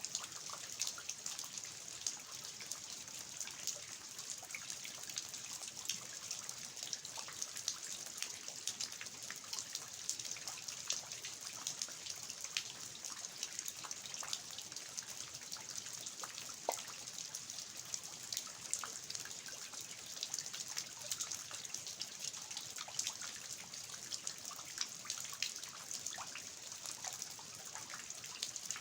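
Steady rain falling in a garden with water dripping and trickling from the eaves, a constant hiss dotted with many small drops and splashes.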